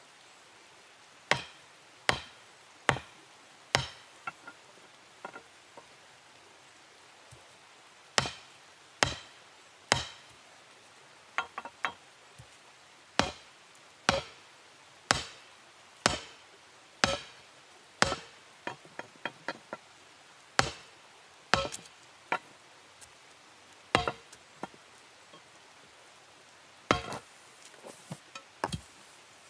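Hand-held stone hammer striking hot steel, mostly about one hard blow a second with short ringing after each, broken by two brief pauses and a few runs of quicker, lighter taps.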